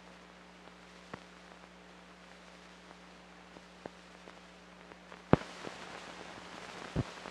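Surface noise of an old film soundtrack running with nothing recorded on it: a faint hiss and a steady low hum, broken by scattered clicks and pops. About five seconds in a sharp pop comes and the hiss gets louder, with another pop near the end.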